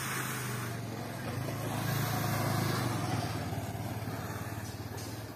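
A motor vehicle engine running nearby as a steady low hum, growing louder to about halfway through and then fading away.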